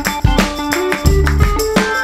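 Background music with a steady beat: plucked-string and percussion instrumental with a strong bass line.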